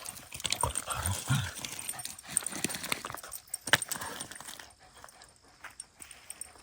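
Two pet dogs play-fighting, making short low vocal sounds in the first second and a half, with scattered sharp clicks, the loudest nearly four seconds in. Quieter over the last two seconds.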